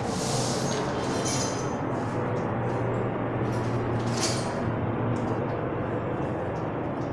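Light clinks and knocks from parts of a wooden bed frame being handled during assembly, a few separate ones near the start, about a second and a half in and about four seconds in, over a steady low background hum.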